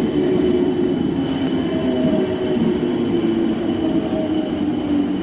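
Electric train's air compressor running with a steady, slightly wavering hum.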